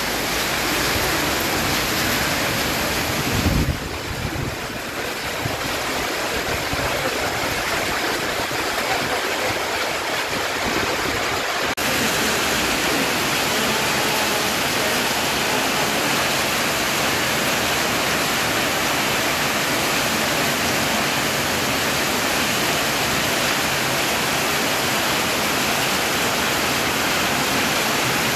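Heavy rain mixed with hail pouring down, a dense steady rushing noise of water and hailstones striking the ground.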